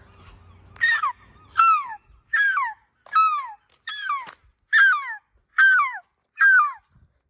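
A gull calling: a run of eight loud, yelping calls, each one falling in pitch, about one a second.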